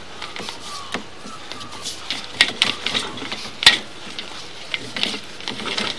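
Irregular clicks and light clattering knocks over a faint steady hiss, from drain-clearing gear being worked. The sharpest knocks come about two and a half and nearly four seconds in.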